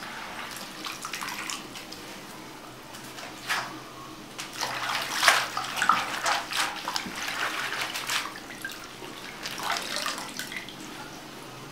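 Hands swishing and rubbing a bunch of amaranth greens in a stainless-steel basin of water, with irregular splashes. Near the end the greens are lifted out and water drips and runs off them back into the basin.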